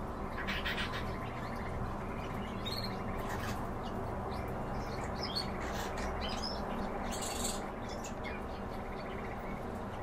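Eurasian tree sparrows chirping: short, scattered chirps every second or so, over a steady low background hum.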